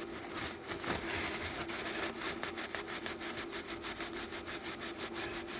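Wire wool scrubbing the discoloured metal charging terminals of a light's charger in quick, even back-and-forth strokes.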